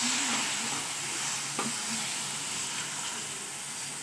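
Room-temperature milk poured into hot roasted semolina, sugar and milk powder in a pan, sizzling and hissing as it is stirred with a spatula. The hiss slowly fades, with one light tap about halfway through.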